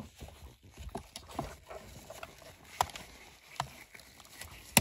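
Small clicks and handling noise of gloved hands working a cutting tool on airbag wires in a steering wheel, ending in a sharp snip as the second wire is cut through.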